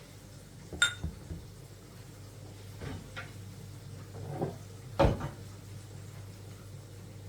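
Kitchen dishes and a cupboard being handled: a ringing clink of crockery or glass about a second in, a few softer knocks, and the loudest thump about five seconds in, over a low steady hum.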